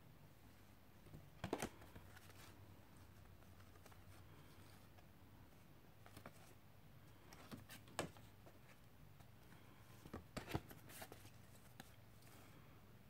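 Paper postcards handled and flipped over by hand: short soft rustles and taps of card in three small clusters, about a second and a half in, around eight seconds, and around ten to eleven seconds, over a faint steady hum.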